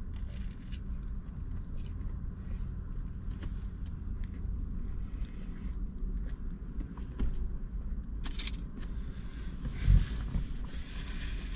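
Steady low rumble of a parked car heard from inside the cabin, with faint clicks of chewing and handling of a chicken nugget, and one dull thump about ten seconds in.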